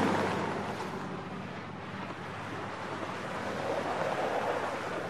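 A rushing noise like wind or surf, fading over the first two seconds and then slowly building again.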